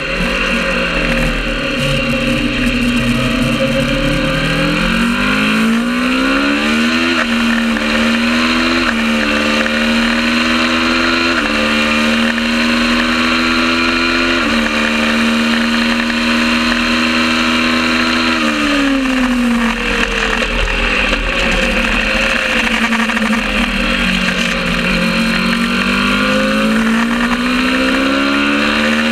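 Kawasaki ER650 parallel-twin race motorcycle engine at full throttle, its pitch climbing and dropping back with each of about four upshifts. Past the middle the revs fall for a few seconds as it shuts off and changes down, then it pulls up through the gears again.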